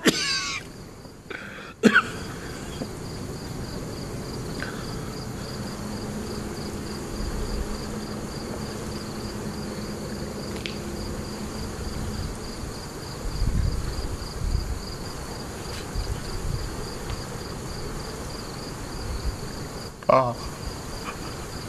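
Crickets chirping in a steady, fast pulsing trill. A man's voice is briefly heard at the start, a sharp click comes about two seconds in, a low rumble sounds about halfway, and a man sobs near the end.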